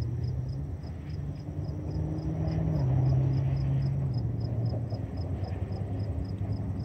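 Low engine drone whose pitch steps up and down, growing louder toward about three seconds in and then easing off.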